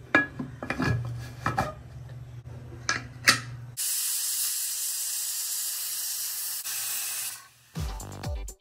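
A few sharp metal clicks and clanks from the aluminium pressure cooker's lid and weight over a low hum. Then, a little under four seconds in, the cooker whistles: a loud, steady steam hiss through the weight valve for about three and a half seconds, as the cooker comes up to pressure.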